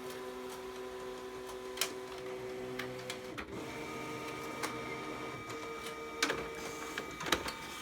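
HP 3330 printer-copier running a copy, its motors and rollers pulling a sheet of paper through with a steady hum. There are a few sharp clicks, and the hum changes pitch about three and a half seconds in.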